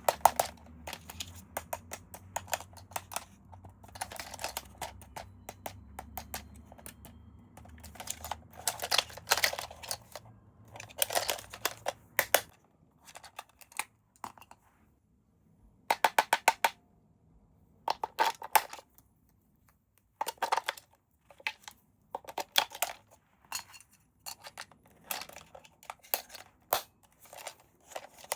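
Hands handling toy packaging: clusters of quick clicks and crinkling of plastic and cardboard, with short pauses between them. A faint low hum stops about halfway through.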